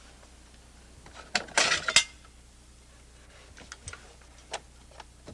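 Hearty Hanger siding brackets being pulled out from under a fiber-cement plank: a quick run of sharp clicks and rattles about a second and a half in, then a few light ticks.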